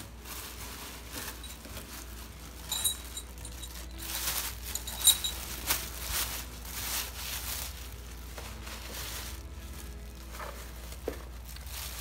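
Clear plastic bag crinkling and rustling as it is pulled off a new engine, in irregular handfuls, louder around three and five seconds in.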